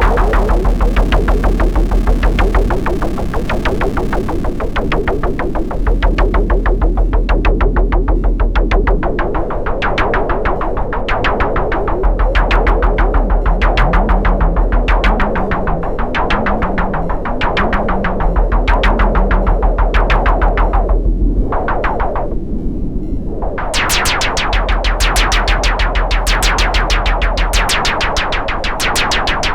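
Electronic noise music: a dense train of rapid synthesized clicks and pulses over a deep bass tone that switches on and off every few seconds. The high end thins out about twenty-one seconds in, then sharp, bright clicks return.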